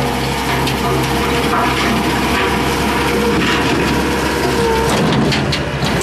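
Gehl 5640 skid steer's diesel engine running steadily while the hydraulically driven toothed drum of an FFC Preparator landscape rake churns through soil and stones, giving a continuous gritty noise over the engine.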